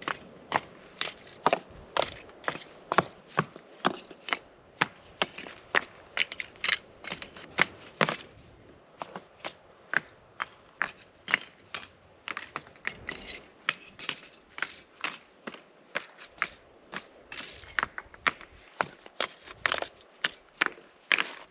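Loose rocks clacking and scraping against one another as they are set and stacked by hand into a stone fire ring, a quick run of sharp knocks, several a second.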